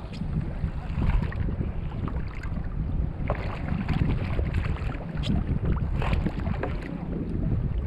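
Wind buffeting the microphone over water lapping and splashing against a sit-on-top fishing kayak's hull, with a few brief sharper splashes.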